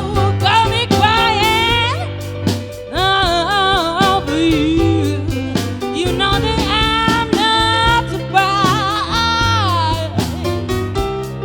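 Live blues band playing a slow ballad: a sliding, bending lead melody with vibrato over a steady bass line and accompaniment.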